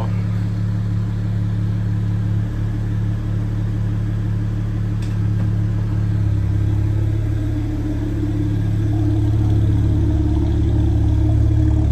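A car engine idling steadily close by, a deep even hum that grows a little fuller about six seconds in and a little louder again near ten seconds.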